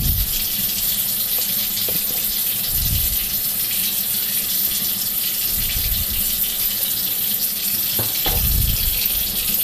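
Kitchen tap running into a sink, a steady splashing hiss, with a few low dull thumps from about three seconds in.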